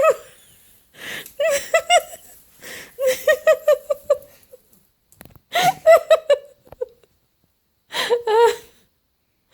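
A woman laughing in about four bursts with short pauses between them.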